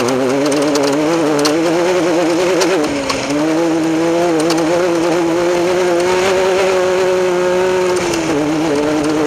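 Off-road race vehicle's engine running hard at high, steady revs, its pitch wavering, dipping briefly about three seconds in and again near the end. Scattered clicks and knocks from the vehicle on rough ground.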